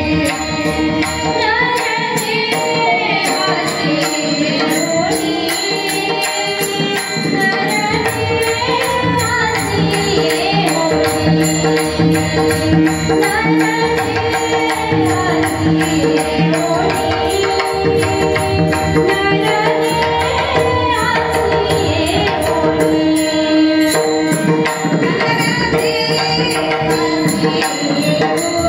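Marathi kirtan: a devotional tune sung by a single melodic voice with gliding ornaments over a steady held drone, with percussion keeping an even beat.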